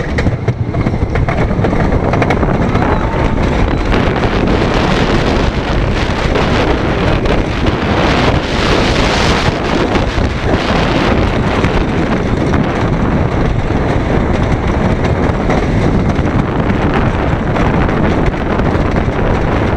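Wind buffeting the microphone over the rumble of a wooden roller coaster's Philadelphia Toboggan Coasters train running along its track, loud from just after the start as the train drops off the lift hill.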